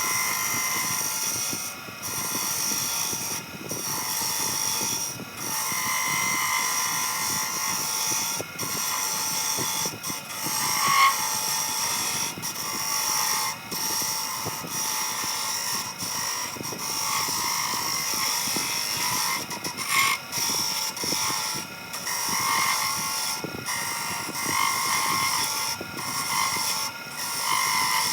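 Wen benchtop wood lathe running, with a lathe chisel cutting the spinning wooden spindle to straighten its taper. The cutting noise comes in repeated passes and drops out briefly every second or two as the tool comes off the wood.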